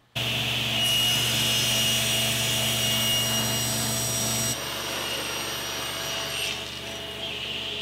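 Table saw running and ripping a strip of bead molding off the edge of a board: a steady motor hum with a high whine over the noise of the blade in the wood. The level drops slightly about four and a half seconds in, and the highest whine stops a couple of seconds later.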